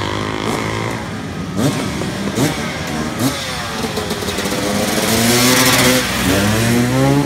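Enduro dirt bike engines revving as the bikes ride up the street and pass close by. The pitch rises and falls with the throttle, and the nearest bike is loudest about five to six seconds in.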